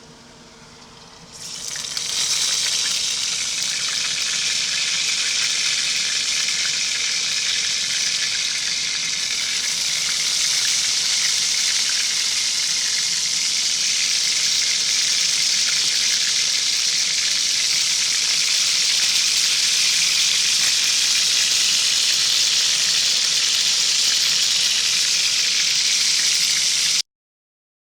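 Food frying in hot bacon grease: a loud, steady sizzle that starts suddenly about a second and a half in and cuts off sharply near the end.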